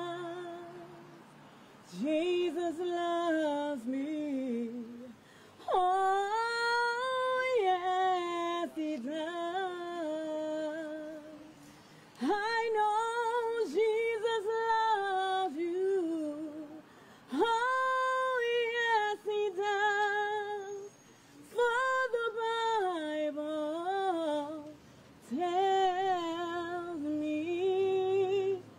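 A woman singing a gospel song solo and unaccompanied, in long drawn-out phrases of wavering, ornamented held notes with short pauses for breath between them.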